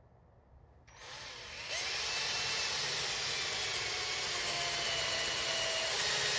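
Electric drill with a dull 5/8-inch bit boring into a wooden dowel rod. The drill starts about a second in and runs steadily, getting louder as the bit bites into the wood.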